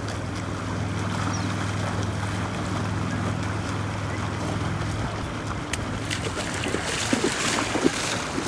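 Shallow water lapping over sand with wind rumbling on the microphone and a steady low hum underneath. Small splashes and crackles come in over the last couple of seconds.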